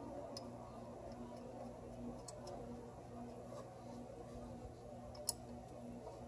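Faint scattered metallic clicks of a bolt and small parts being handled by hand on the engine, with one sharper click about five seconds in, over a steady low hum.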